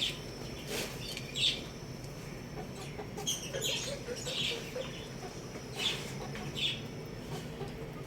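Chickens clucking softly, with short high-pitched peeps every second or so over a steady low hum.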